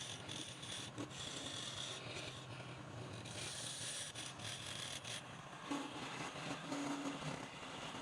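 A tool scraping and rasping against wood, a continuous rough rubbing noise as the wood is worked.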